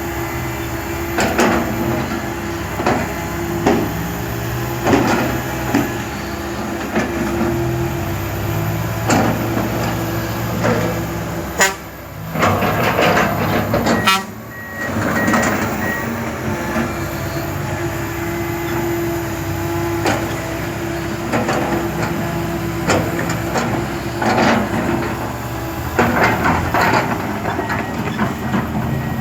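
Komatsu PC160LC hydraulic excavator at work: its diesel engine runs steadily under load while repeated metallic clanks and knocks of the bucket and tracks come through, with two brief dips in the sound near the middle.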